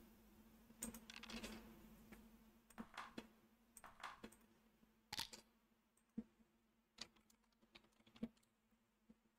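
Faint, irregular clicks and taps at a computer: a small cluster about a second in, then single clicks every second or so, growing sparser toward the end.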